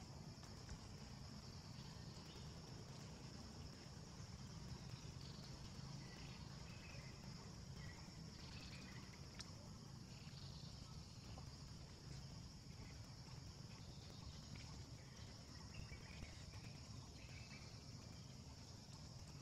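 Faint outdoor background: a steady, high insect drone over a low rumble, with a few faint short chirps and one small click.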